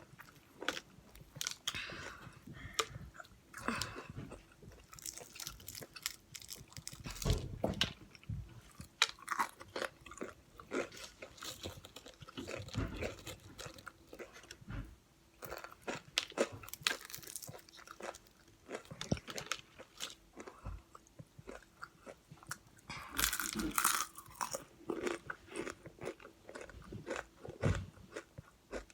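Crunching and chewing of crispy fried chicken: a long run of uneven crisp crackles from bites, with wet mouth sounds in between.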